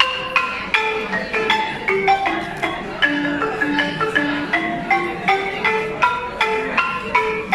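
Mandinka balafon, a West African xylophone with wooden keys over gourd resonators, played with two mallets in a quick, steady run of struck notes, several a second.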